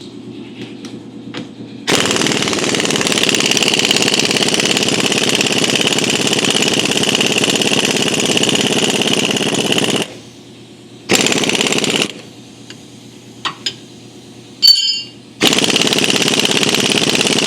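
Impact wrench hammering on a nut of the rear axle's leaf-spring mounts, in one long run of about eight seconds, then two short runs near the end. A single sharp metal clink comes between the short runs.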